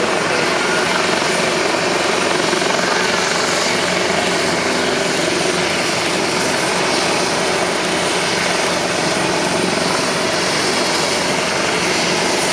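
Helicopter running close by: a loud, steady rotor and turbine noise that holds level throughout.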